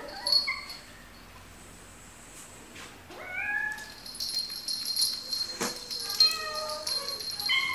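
Domestic cat meowing twice: a short call that rises and falls about three seconds in, and a longer, wavering meow near the end.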